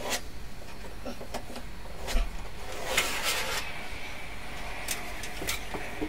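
Scattered knocks and clicks, with a short scrape about three seconds in, from hand work on MDF wardrobe coving.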